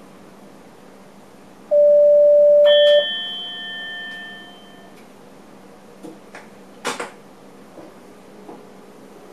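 A train cab's electronic alert: a loud steady beep for just over a second, then a single bell-like chime that rings and fades over a couple of seconds. Later come a few sharp clicks over a steady low cab hum.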